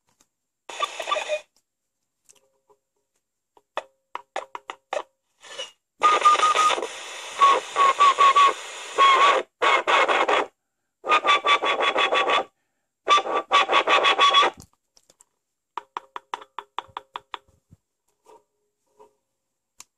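Sony portable FM radio's speaker giving bursts of hiss and static with a wavering high whistle while it receives a homemade FM transmitter at about 88 MHz, broken by short runs of clicks and brief silences.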